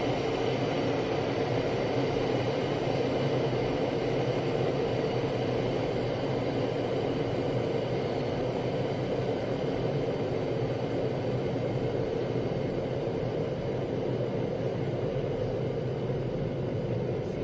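Breville VKT192 Edge electric kettle, just over half full, at the point of boiling: a steady, fairly noisy rushing rumble of water boiling hard.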